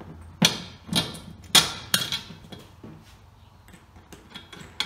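About four sharp knocks and clicks in the first two seconds, then a few fainter ticks: bolts, nuts and the steel handle arm of a wheelbarrow knocking against its upturned poly tray as the arm is bolted on.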